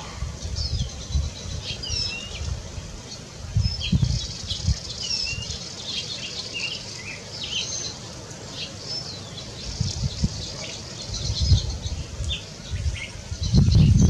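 Wild birds chirping and calling around a feeder: many short whistled notes and chirps, some rising or falling, from several birds, with a few low thumps scattered through.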